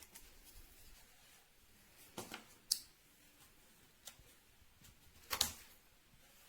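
A few isolated faint clicks and short scraping sounds against a quiet room. The sharpest click comes just under three seconds in, and a longer scrape a little past five seconds.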